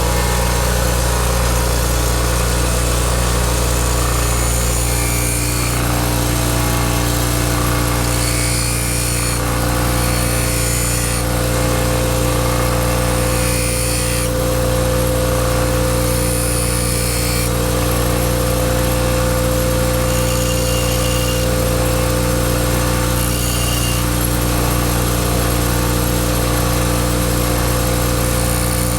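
Bench grinding wheel motor running with a steady hum, while a steel chisel is pressed to the wheel in repeated passes, each adding a high grinding hiss that lasts about a second.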